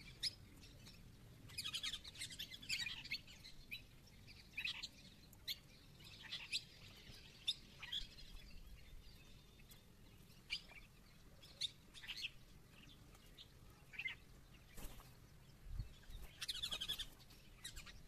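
Small birds chirping: short high calls scattered throughout, with two denser spells of twittering, one a couple of seconds in and one near the end.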